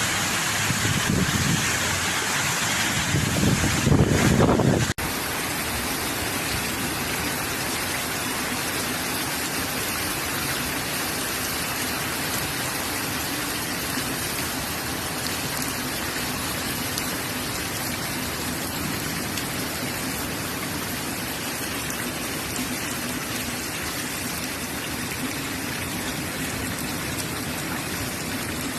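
Heavy hurricane rain and wind, a steady even hiss. For the first five seconds there is a louder, gusting rumble, which cuts off abruptly.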